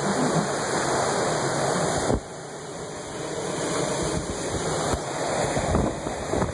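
Steady rushing of hurricane wind and storm-surge water, with the wind buffeting the microphone. The noise drops suddenly about two seconds in, then slowly builds again.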